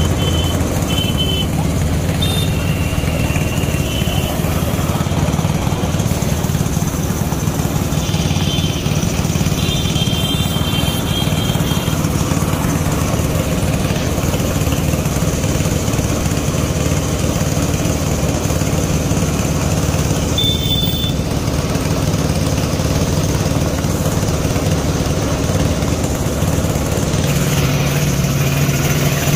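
Compressed-air paint spray gun hissing steadily as paint is sprayed onto a car body panel, over a constant low machine hum that shifts in pitch near the end.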